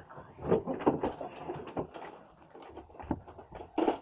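Plastic Nerf blaster magazines being handled: an irregular series of light knocks and clicks, the loudest clack near the end.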